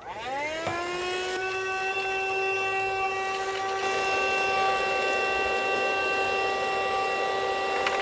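Cherylon portable handheld car vacuum switching on, its motor whine rising in pitch over about the first second and then running steady and high. Faint clicks come as snack debris is sucked up the hose.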